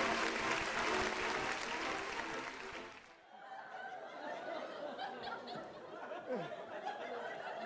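Audience applause over music, which stop abruptly about three seconds in; then scattered audience chuckles and laughter.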